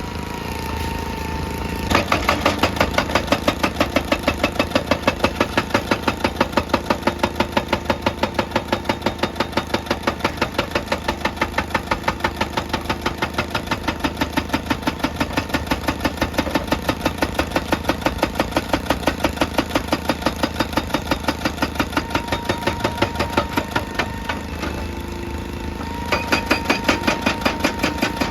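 Excavator-mounted hydraulic breaker hammering rock in fast, even blows, several a second, over the diesel engine running. The hammering starts about two seconds in, stops for a couple of seconds near the end, then starts again.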